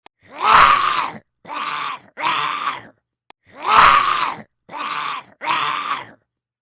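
Zombie groans voiced by a person: a long loud groan followed by two shorter ones, then the same set of three again.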